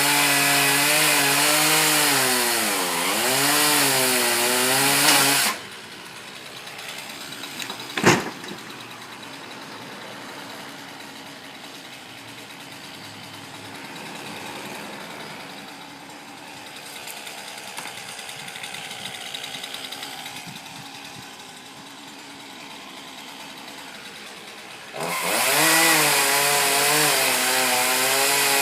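Chainsaw running at high revs with the pitch dipping and recovering, then dropping suddenly to a much quieter running sound about five seconds in. There is a single sharp click a few seconds later, and the saw revs back up again near the end.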